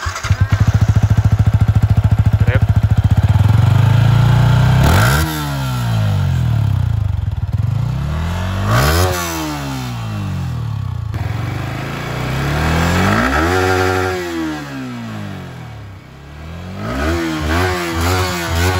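Yamaha R15 V3's single-cylinder engine running at idle with a fast, even pulse, then revved three times, each rev climbing and dropping back. Near the end it gives a run of quick throttle blips.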